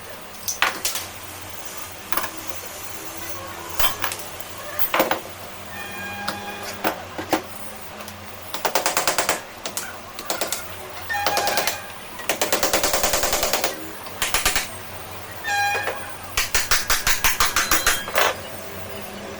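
Workshop tool clatter on a BLDC hub motor: scattered sharp knocks and several bursts of rapid clicking, each lasting about a second, over a steady low hum.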